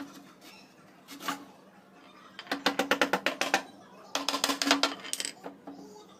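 Two quick runs of light, sharp taps on a plywood box, about ten taps a second, each run lasting about a second.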